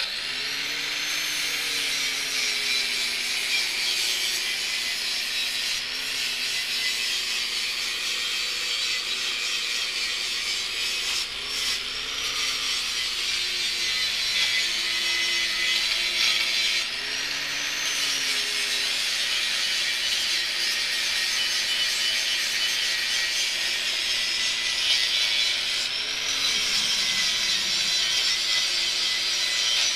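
Power grinder grinding down weld seams on a steel drift-trike frame, running continuously with a harsh, hissing grind. Its motor pitch sags and recovers several times as it is pressed into the metal.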